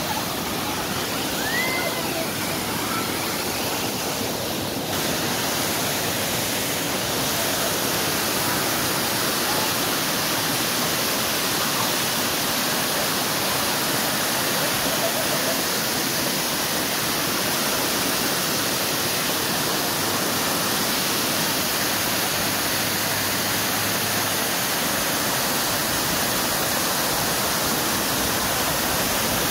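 Hot-spring water cascading down white, mineral-crusted terrace walls and pouring from a wall spout: a steady, even rush of falling water.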